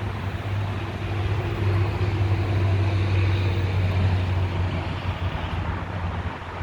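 A motor vehicle's engine running with a steady low hum that swells for a few seconds and then eases off, over outdoor noise.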